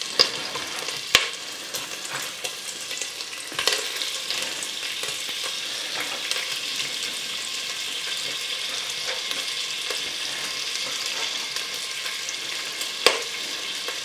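Steady sizzle of food frying in fat in a pan, with a few sharp knocks of a kitchen utensil about a second in, around four seconds in and near the end.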